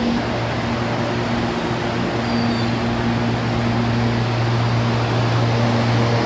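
Commuter train's rooftop air-conditioning units running: a steady low hum with fan rush over an even hiss.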